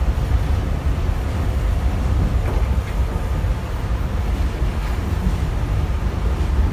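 Steady low rumble inside a moving Nippori-Toneri Liner car, the driverless, automatically run rubber-tyred train travelling along its guideway.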